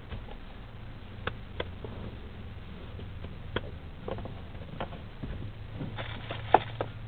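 Scattered small clicks, knocks and rustles of someone searching a car's cabin for keys, handling the sun visor and shifting in the seat, over a steady low hum. The sharpest click comes near the end.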